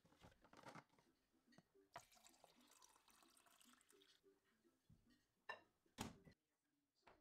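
Hot water poured from a glass kettle into a ceramic mug, a faint splashing trickle for about two seconds. A few sharp knocks follow near the end.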